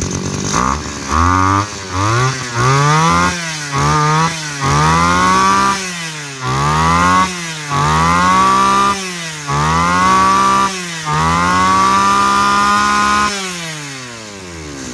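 Mitsubishi T130 two-stroke brush-cutter engine running on test and revved in quick blips from idle, about ten times, each rising in pitch for about a second. The last is held about two seconds before it drops back to idle near the end.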